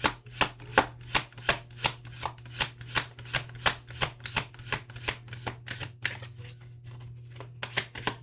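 Tarot cards shuffled by hand, a quick run of sharp card slaps about three a second that thins out briefly near the end, over a steady low hum.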